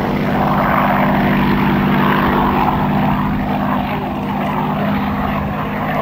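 Piston engine and propeller of a Second World War fighter flying a display pass, running steadily. The engine note holds steady, while the sound above it wavers and phases as the aircraft moves through the sky.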